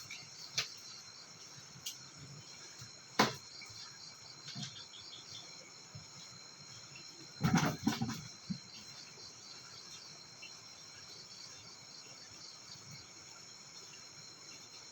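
Crickets chirping in a steady, fast-pulsing chorus. A sharp click sounds about three seconds in, and a short cluster of knocks and rustles comes a little past halfway.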